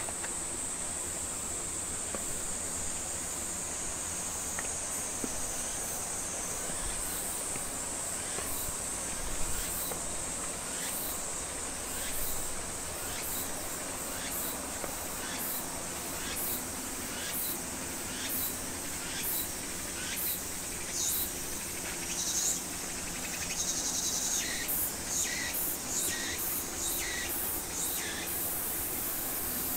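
Insects calling: a steady high trill, joined about a third of the way in by short high chirps repeating roughly twice a second, which grow louder near the end.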